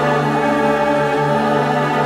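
Background music of slow, sustained held chords.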